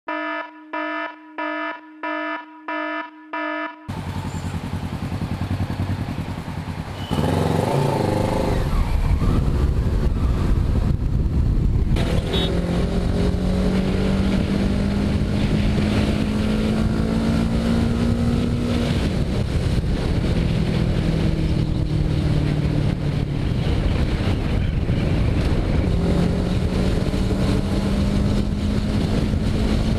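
Motorcycle engine running under a rider, rising steadily in pitch as it accelerates, dropping after a gear change and rising again near the end, over a steady rush of wind. It opens with a short electronic pulsing sting of six even beats.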